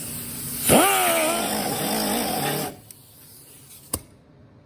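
A small handheld grinder spins up with a quickly rising whine, runs for about two seconds taking paint off the pinch weld down to bare metal for the welder's ground, then cuts off. A single sharp click follows near the end.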